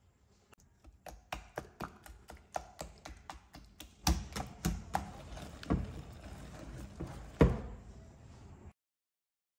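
Wire balloon whisk stirring egg yolks into a whipped mixture in a glass bowl, its wires tapping and clinking against the glass about two to three times a second. From about four seconds in, the stirring thickens into a scraping swish with a few louder knocks, the loudest near the end, then the sound cuts off suddenly.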